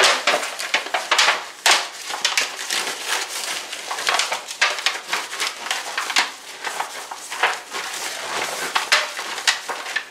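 Thin disposable aluminum foil pan crinkling and flexing as a butter wrapper is rubbed around its inside: a dense, irregular run of crackles and rustles.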